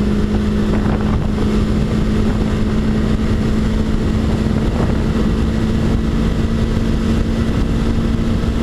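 Small motorcycle's engine droning at a steady pitch while cruising at motorway speed, under heavy wind rumble on a helmet-mounted microphone.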